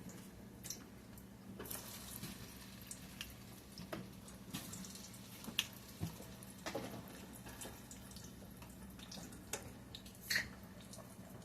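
Frozen chicken nuggets frying in hot grease in a pan: a faint steady sizzle broken by scattered sharp pops and crackles.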